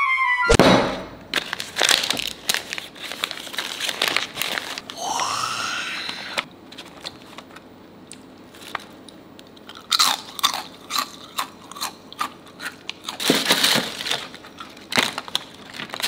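Crisp emping (melinjo nut crackers) crunching and crackling in irregular bursts of sharp clicks, quieter for a few seconds in the middle.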